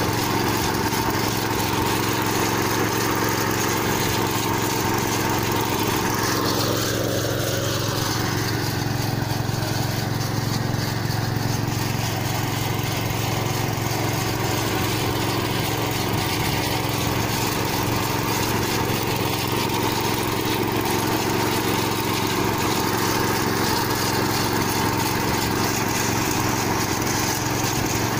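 Compact farm tractor's engine running steadily under load as it pulls a rotary tiller and corn planter through dry soil.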